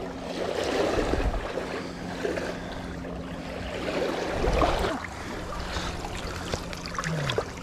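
Shallow moving water rushing and splashing around the hands and a steelhead held in it for release, with a couple of louder sloshes about a second in and near the middle.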